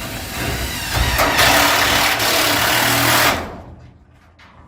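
Power drill running under load, driving a screw through aluminum angle into a metal garage door. It grows louder about a second in and stops fairly abruptly after about three and a half seconds.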